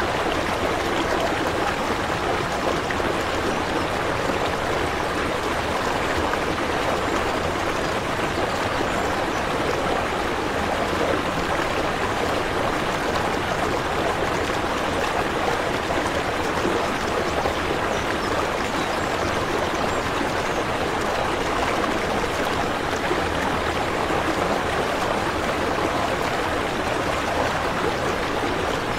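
Steady running water, an even, unbroken rush and trickle.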